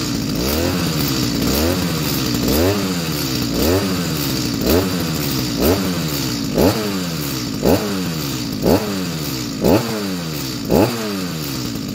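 A new Stihl MS 210 chainsaw's two-stroke engine being blipped on the throttle about once a second, each blip rising and falling back in pitch, as the new engine is warmed up and broken in. The blips grow louder toward the end.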